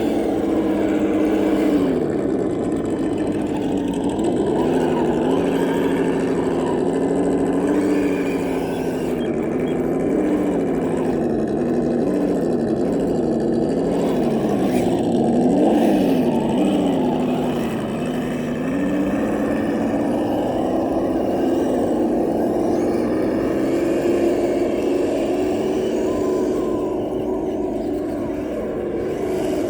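Kyosho Blizzard radio-controlled tracked vehicle's motor whining. The pitch drops, then wavers up and down several times as the throttle is worked, then holds steadier.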